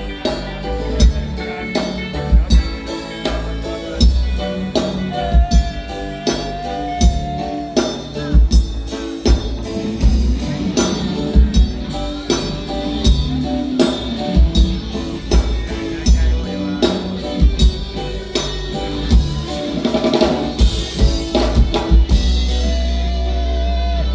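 Live band playing an instrumental passage: a drum kit keeps a steady beat with kick, snare and rimshots under bass and held melody notes. Near the end the drums drop out and a low bass note holds.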